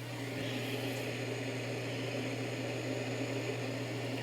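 Steady low hum with an even hiss under it, the background noise of a radio broadcast recording with no speech or alert tones.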